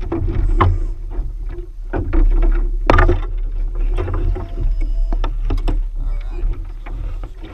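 Wooden oar and boat gear knocking and clunking against a small sailing pram's hull as they are handled and set down: a string of sharp knocks, the loudest about three seconds in, over a steady low rumble.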